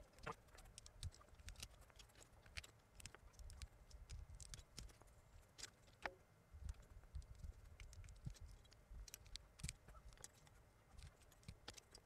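Faint, irregular clicks and taps of PBT keycaps being picked from a pile and pressed down onto Gateron Yellow switch stems while a 60% keyboard is fitted with its caps.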